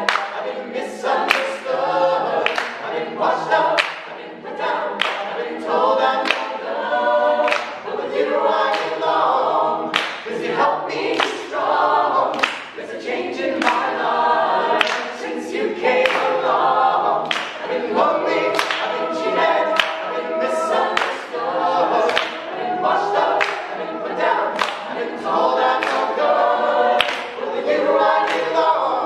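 Mixed a cappella vocal group of men and women singing a gospel song in full harmony, without instruments, with hand claps on the beat.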